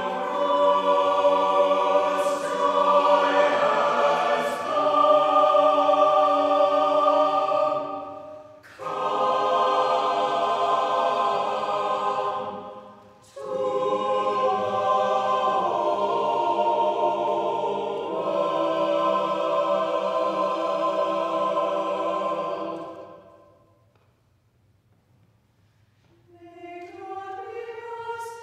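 Mixed SATB choir singing an a cappella anthem in sustained chords, with two brief breaks between phrases. The final chord fades away a few seconds before the end, and after a short silence a new, thinner line of singing begins.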